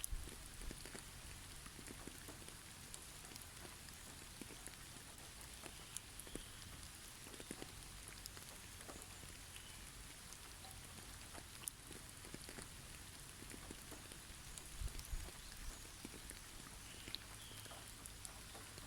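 Snowy forest ambience: a faint steady hiss with scattered light ticks and patters of snow falling through the trees, a couple of soft low thumps, and a few faint short bird calls.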